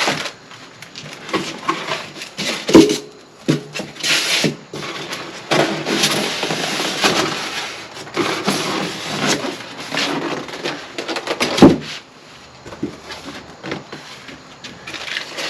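Ceiling fan parts being lifted out of their cardboard box: packaging rustling and scraping, with several sharp knocks, the loudest about three seconds in and again near twelve seconds.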